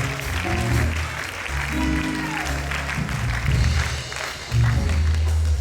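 Congregation applauding the welcome of a performer, clapping over music that has a deep, sustained bass line.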